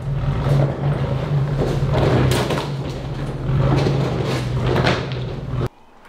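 Vehicle driving: a steady low engine drone with repeated knocks, cut off suddenly near the end.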